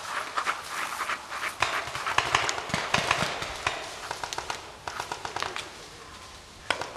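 Running footsteps crunching through dry leaves, with heavy panting. Paintball markers pop in quick strings now and then, the last one near the end.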